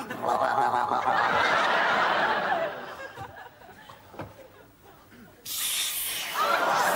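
Studio audience laughing at the punchline; the laughter is loudest for the first couple of seconds, then dies away. It swells again about five and a half seconds in, together with a hiss.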